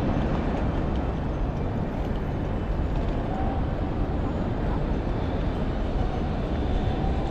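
Steady city street ambience: a continuous low rumble of traffic.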